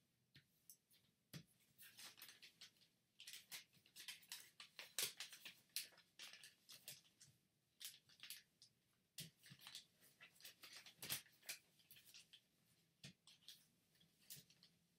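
Origami paper being folded and creased by hand: faint, quick, irregular crinkles and crackles of the sheet, with a couple of duller knocks of hands on the cutting mat.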